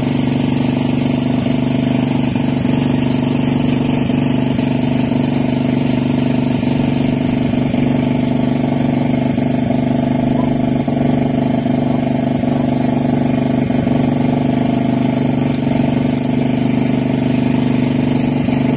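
An on-board engine running steadily at a constant speed: a loud, even drone whose pitch does not change.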